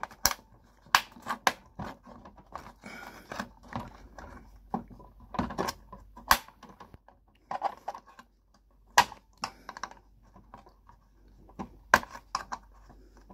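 Scattered sharp clicks and taps of a thin metal pry tool working against the plastic catch of a Ford Focus Mk2 dashboard storage compartment as one corner of the catch is levered up. A few clicks stand out louder than the rest.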